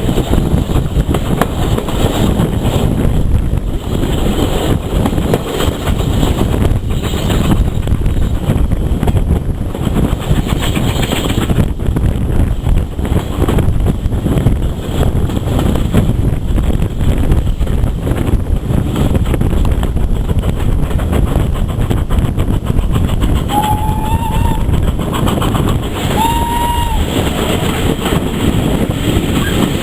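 Heritage railway train running along the line, a steady rumble with rail clatter. Near the end the train's whistle sounds two short toots a few seconds apart.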